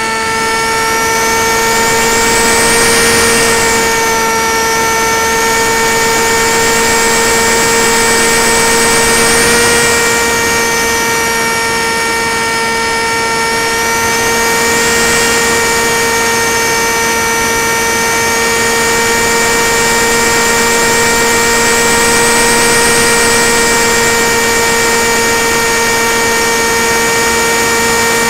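Single brushless motor and propeller of a Tek Sumo flying wing in flight, heard from the onboard camera: a steady hum with overtones, and a high whine that swells and falls about four times as the throttle changes.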